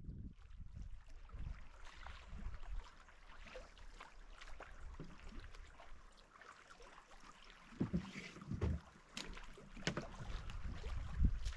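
Wind rumbling on the microphone at a lakeshore as a canoe is paddled in and beached on rock, with a cluster of thuds and knocks about two-thirds of the way through as it comes ashore.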